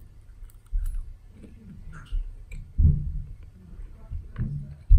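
Close-up chewing and mouth sounds of someone eating a forkful of syrup-covered food, with faint clicks and a few low thumps, the loudest near the end.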